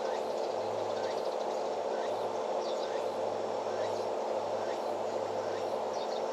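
Outdoor ambience: a steady low hum with faint short chirps every second or so, like small birds or insects.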